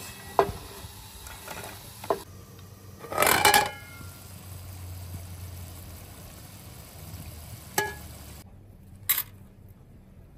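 Kitchen clatter: a wooden spatula knocking against a frying pan as fried potato sticks are lifted out onto a plate, then a few separate knocks and clinks of pots and dishes, the loudest a short ringing clatter about three seconds in.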